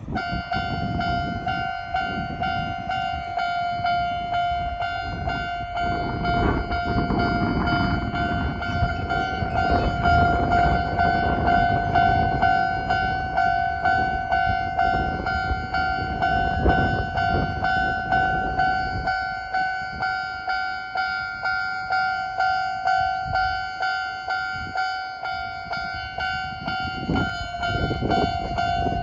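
Japanese railway level-crossing alarm sounding its standard electronic warning tone: a fast, evenly repeated ding at one pitch that starts right at the beginning and keeps going. A low rumbling noise runs beneath it, easing about two-thirds of the way through.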